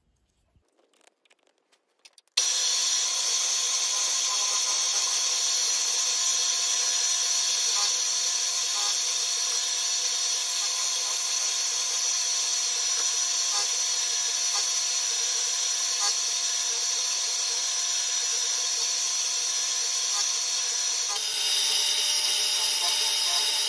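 Milling machine with an end mill cutting brass: a steady whine of the spindle with a high hissing cut, starting suddenly about two seconds in after a few faint clicks, its tone shifting slightly near the end.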